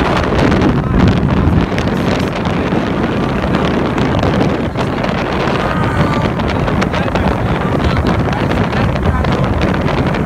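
Wind buffeting the microphone aboard a power boat under way, over the steady drone of its engine.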